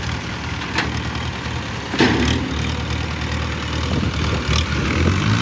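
Diesel tractor engine running steadily under load while towing a heavy harvester body out of a field, with three short sharp knocks from the hitch and body.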